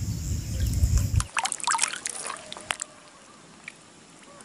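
Water splashing and trickling in a quick run of splashes between about one and a half and three seconds in, after a low rumble that cuts off abruptly.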